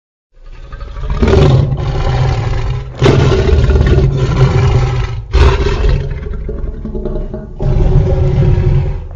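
Custom designed creature roars for the fictional hybrid dinosaur Chimerasaurus Rex: a run of loud, deep, growling roars after a brief silence, with fresh roars breaking in about one, three, five and a half and seven and a half seconds in.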